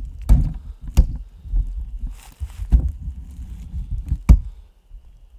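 Low rumble of wind and handling on the camera microphone, with four sharp knocks and a short rustle as the camera is moved about. It goes quieter near the end.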